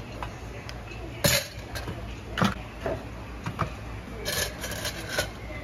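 Plastic rice paddle scooping cooked rice from a rice cooker's pot into a paper takeaway box, with several sharp knocks and taps, the loudest about a second in, and a run of clattering near the end. A low steady hum runs underneath.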